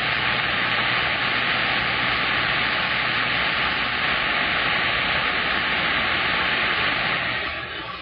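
Steady hiss of static from a CB radio receiver on a keyed signal that carries no voice, fading out at the very end.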